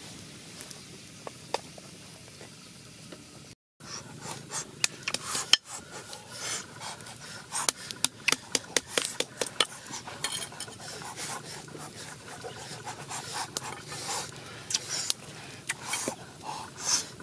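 A wood fire burning under a wok, a steady faint hiss with a few small crackles. After a short break, a knife works on a flat stone, making many irregular sharp taps and scrapes as herbs and a lime are cut.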